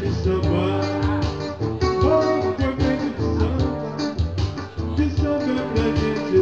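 Live music: a guitar playing over a steady beat, mostly instrumental.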